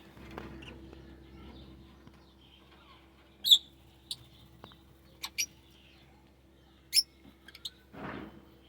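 Lovebirds giving short, sharp, shrill chirps, about seven scattered calls, the loudest about a third of the way in and again near the end, over a faint steady hum.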